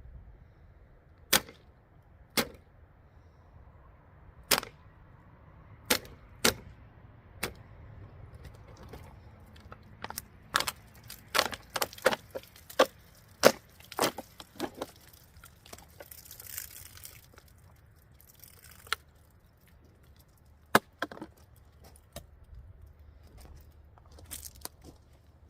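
Plain blade of a cheap Swiss Army knife clone being stabbed and struck repeatedly into a surface: sharp, irregular knocks, coming fastest in a run in the middle.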